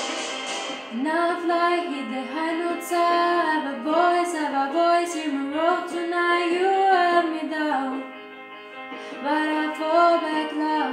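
A young woman singing a pop ballad solo, long held notes that bend and slide in pitch, over quiet backing music. The voice drops out briefly about eight seconds in, then comes back.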